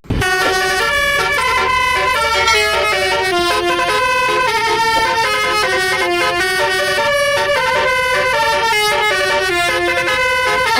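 Multi-tone 'telolet' bus air horn playing a quick tune of short held notes, one after another without a break.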